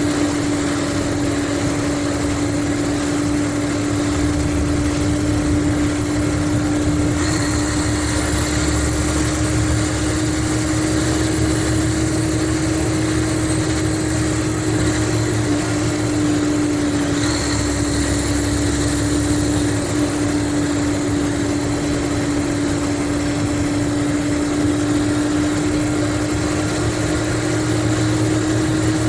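Mercedes-Benz O500RSD coach's diesel engine running steadily, a constant drone with a steady pitch. A faint high whine joins it at about seven seconds and again at about seventeen seconds.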